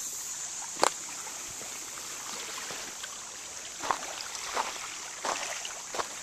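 Small waves lapping at a lakeshore: a handful of brief splashes, the loudest about a second in, over a steady high hiss.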